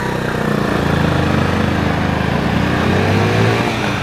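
Motorcycle engine running under way over steady wind rush, its note rising as it accelerates from about halfway through, then dropping near the end as if for a gear change.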